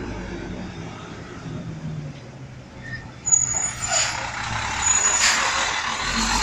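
Heil Durapack Rapid Rail side-loader garbage truck pulling up: its diesel engine drones, and from about three seconds in the brakes squeal and hiss as it draws alongside, growing louder.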